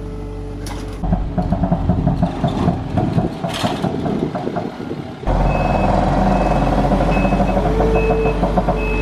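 Kawasaki wheel loader's diesel engine running as it moves. About five seconds in its reversing alarm starts beeping steadily, just under once a second.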